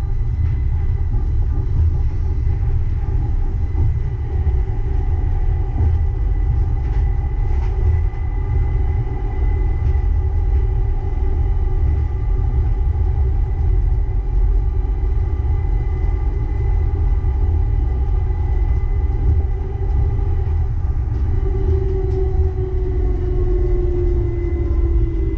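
Uijeongbu light rail train, a rubber-tyred Siemens VAL 208, running: a steady low rumble with steady motor tones above it. Near the end the tones start falling in pitch as the train slows.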